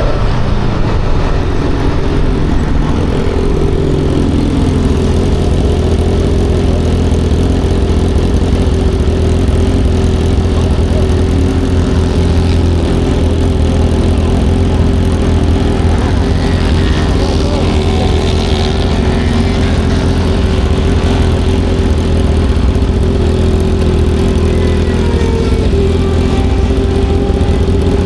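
Aprilia Tuono V4's V4 engine running loud and steady under load on track, its pitch shifting and gliding up and down a few times in the second half.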